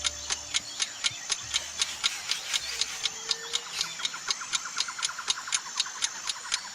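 Ticking-clock sound effect counting down a thinking pause, a steady tick about four to five times a second, with a faster, fainter run of clicks joining in around the middle.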